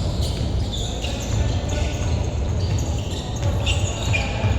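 Indoor basketball game: sneakers squeak on the court again and again, over the thuds of the ball being dribbled.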